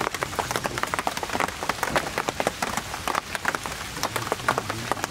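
Steady rain, with many separate drops striking close by in sharp irregular taps, several each second.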